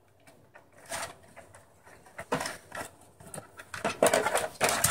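Irregular clicks, taps and rustling of small plastic parts being handled, busier and louder in the second half.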